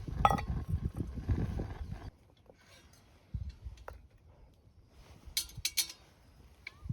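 Camp cookware clinking: a quick cluster of sharp clinks a little after the middle, with a few lighter ticks before it. Low rumbling noise fills the first couple of seconds, then stops abruptly.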